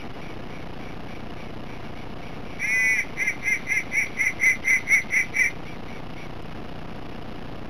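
Duck call blown close by: one long quack, then a run of about ten short quacks at roughly four a second, over a steady background hiss.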